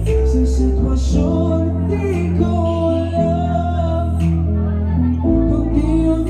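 A man singing a ballad live into a handheld microphone over loud amplified music with sustained bass notes, heard through the venue's sound system.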